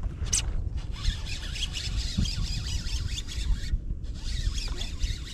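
A brief swish of the cast near the start, then a fishing reel being cranked to retrieve the lure: a rapid whirring-clicking of the reel gears in two stretches with a short pause between them.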